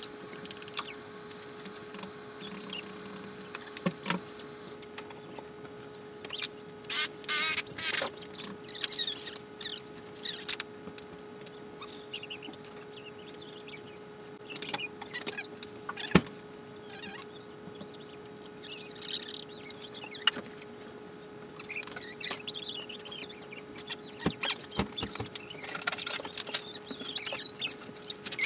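Metal frame tubes and parts of an Otter X-Over ice-fishing shanty being handled and fitted together: scattered clinks, rattles, knocks and scrapes in irregular bursts, over a steady hum.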